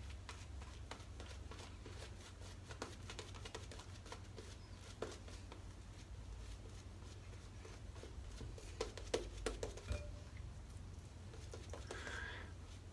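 Wolf Whiskers two-band badger shaving brush working lather over a face: faint, scattered crackles and soft ticks of bristles and lather, a few slightly louder about nine seconds in.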